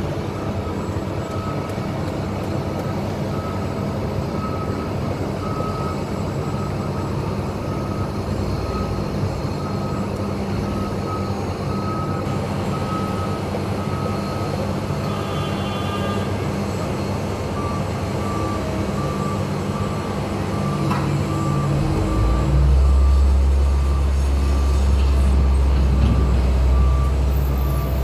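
Heavy road-construction vehicle with its diesel engine running and a reversing alarm beeping about once a second. A second, slightly lower alarm takes over later, and the engine rumble grows much louder near the end.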